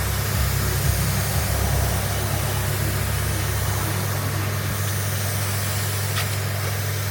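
Car engine running steadily, a constant low drone under an even hiss of road and wind noise.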